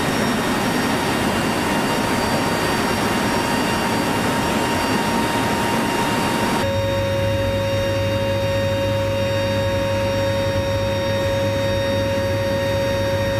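Lockheed C-130 Hercules turboprop engines running in flight, heard at the open rear door with a steady rush of wind. About six and a half seconds in, the sound cuts abruptly to a steadier engine drone from inside the cabin, with less wind and a constant hum.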